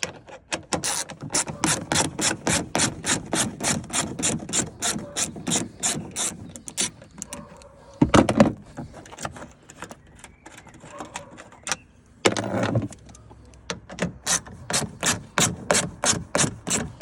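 Hand ratchet clicking at about four clicks a second as 10 mm bolts are wound out, in two long runs with a pause between them in which two louder knocks sound.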